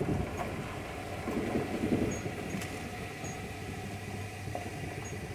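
Chevrolet Silverado pickup rolling slowly over a rutted, potholed dirt road, heard from inside the cab: a steady low engine hum under the bumps of the tyres and a few light clinks and rattles from the truck.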